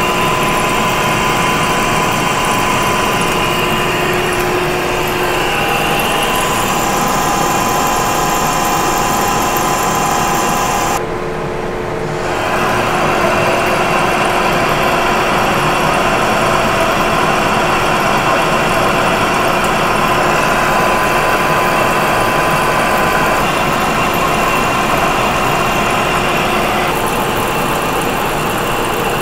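Metal lathe taking a heavy roughing cut in solid 1045 steel with a CNMG carbide insert under flood coolant, a steady grinding machine noise of the running lathe and the cut. The sound briefly drops and dulls about eleven seconds in, then carries on as before.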